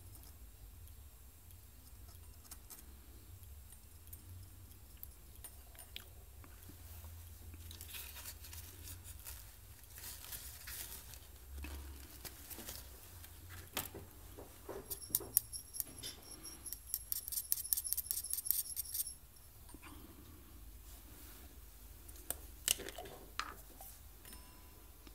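Paintbrush stirring paint in a small metal mixing cup, with a quick run of light metallic clinks and ticks from about 15 to 19 seconds in. Faint scattered taps and clicks from handling small paint pots elsewhere.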